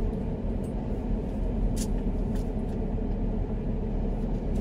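Steady low rumble inside a car's cabin from the engine and road, with a few faint clicks.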